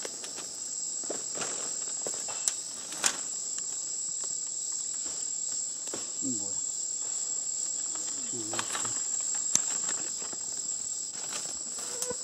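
Steady high-pitched drone of a rainforest insect chorus, with a few sharp clicks or snaps rising above it a few times.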